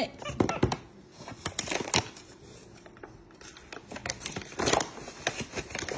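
A capuchin monkey knocking and scraping a silicone spatula against a glass measuring cup, with utensils clattering on the counter: a run of sharp clicks and taps in three short flurries.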